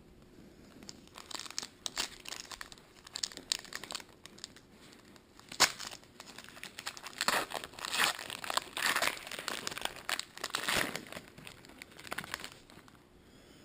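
Trading card pack wrapper being torn open and crinkled by hand: irregular crackling rustles, with a sharp snap about five and a half seconds in and a denser stretch of crinkling after it.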